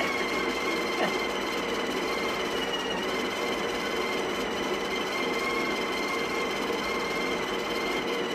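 Built-in burr grinder of a Breville Barista Express espresso machine running, a steady motor whine, after it had stopped grinding and been restarted.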